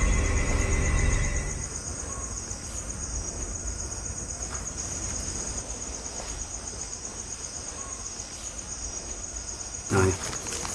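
Crickets chirping in a steady, fast, high trill, while eerie soundtrack music fades out in the first second or two. A brief louder sound comes near the end.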